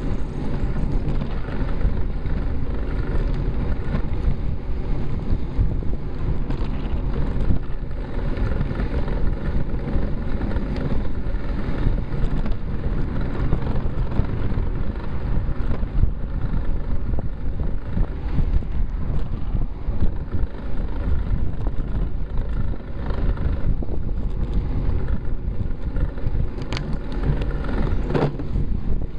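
Steady wind noise buffeting the microphone of a camera mounted on a bicycle moving at about 15 mph, a continuous low rumble without let-up.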